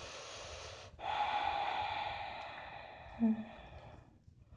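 A woman's deep, audible breath: a sharp inhale lasting about a second, then a long exhale that fades over about three seconds, with a brief voiced sound near its end.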